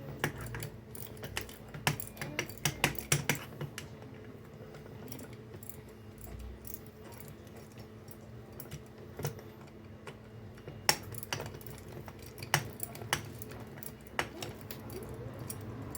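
Scattered light metallic clicks and clinks of hand tools and small starter-motor parts being handled, bunched in the first few seconds and again in the second half, over a faint steady hum.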